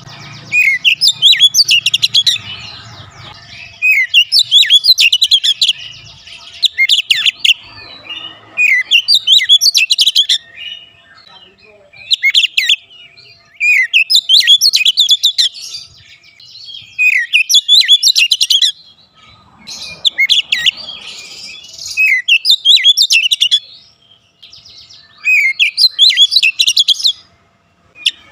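Male oriental magpie-robin singing vigorously in full song. It gives loud phrases of rapid, varied whistles and chirps, each lasting a second or two and repeated every two to three seconds.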